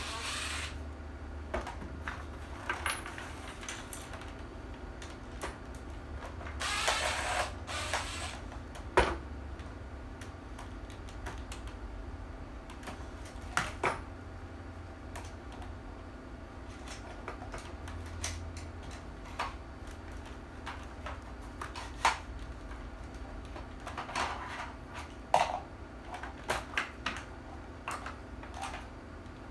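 Scattered clicks and knocks of a replica pulse rifle's parts being handled and taken apart, with a brief scraping a few seconds in and the sharpest knock about nine seconds in, over a steady low hum.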